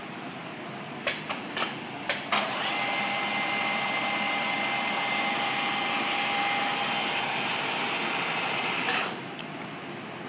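Deckel FP2NC CNC milling machine: a few sharp clicks, then a drive motor starts and runs with a steady two-note whine for about six and a half seconds before stopping abruptly.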